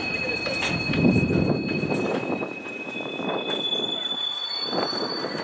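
Freight tank car wheels squealing against the rail as the car rolls through a hump classification yard: several steady high-pitched squeals that shift pitch about halfway through, over a low rolling rumble of the wheels that swells about a second in, with scattered clacks.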